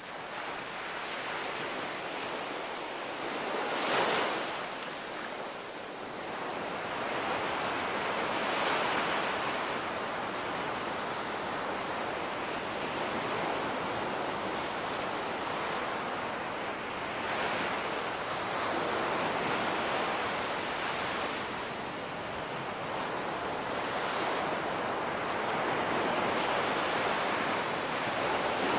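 Ocean surf washing on a beach, a steady rush of water that swells and fades every few seconds, with the strongest surge about four seconds in.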